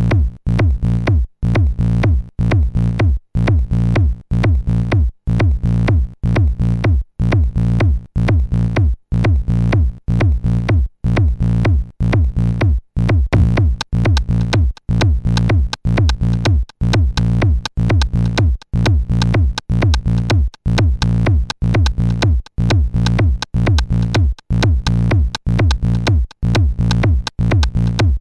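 Electronic techno-style music from the Amiga 1200 demo's soundtrack: a steady drum-machine beat over a heavy bass, with short gaps of silence between the beats.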